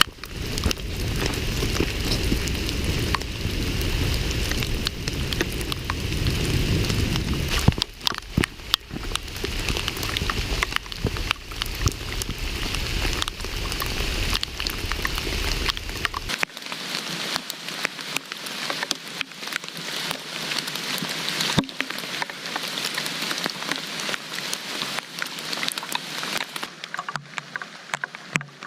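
Steady rain with many individual drops ticking sharply. A low rumble runs under it for the first half and cuts off suddenly a little past halfway.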